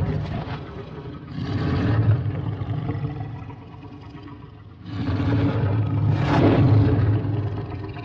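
Deep monster roars designed from processed lion roars. They come as long low-pitched swells: one fading out at the start, a second about a second in, and a third, the loudest and longest, from about five seconds in, flaring higher near its peak.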